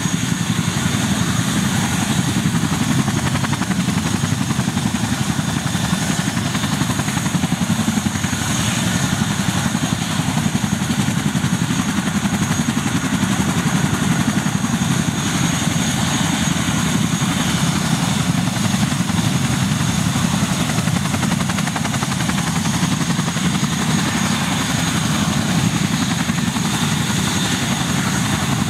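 Boeing CH-47 Chinook on the ground with its two turboshaft engines running and both tandem rotors turning: a steady, rapid rotor chop with a high, thin turbine whine over it.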